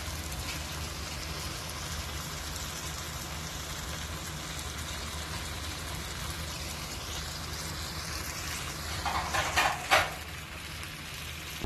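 Mutton karahi simmering and sizzling in its pan: a steady hiss with a low hum underneath. A few brief louder noises come about nine to ten seconds in.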